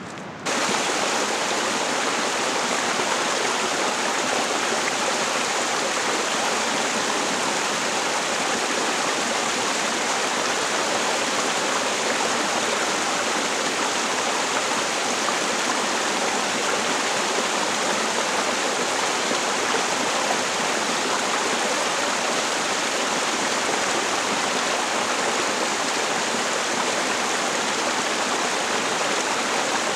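Small waterfall splashing down a mossy rock face into a creek: a steady, even rush of falling water that starts suddenly just after the beginning.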